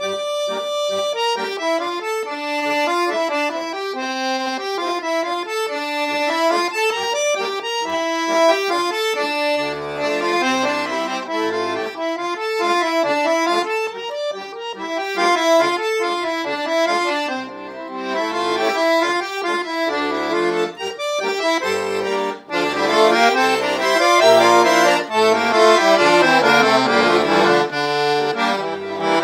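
Tula multi-timbre garmon, a Russian button accordion with reed blocks by D. Lapushkin, playing a folk tune in F major. The right-hand melody plays alone at first; about ten seconds in the left-hand bass and chords come in, and the playing grows fuller and louder near the end.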